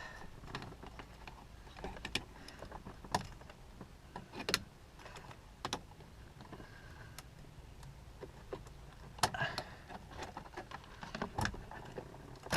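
Scattered light clicks, taps and knocks of hands and a tool working at the steering wheel's plastic trim and cruise control switch to free the part.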